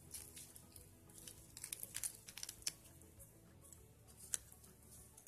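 Thin plastic wrapping crinkling and crackling as hands handle it around a wristwatch: faint scattered crackles, thickest about two seconds in, with one sharper click a little after four seconds in.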